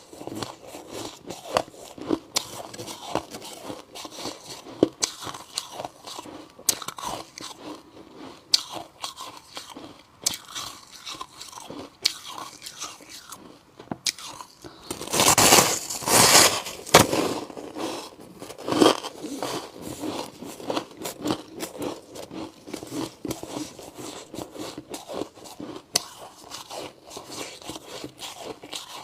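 Chunks of white humidifier ice being bitten and chewed close to the microphone: a constant run of crisp crunches and cracks, with a louder burst of crunching about halfway through.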